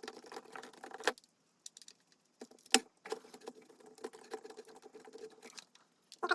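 Light clicking and rattling of small plastic model parts and tools being handled on a workbench, with two sharper clicks about a second and about three seconds in, over a faint steady hum.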